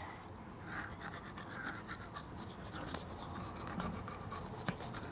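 A manual toothbrush scrubbing teeth with quick back-and-forth strokes, starting about half a second in.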